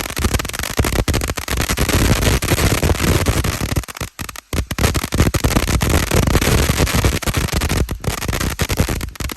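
500-gram firework fountain going off in a dense, continuous crackle of rapid pops, breaking off briefly about four seconds in before the crackling resumes.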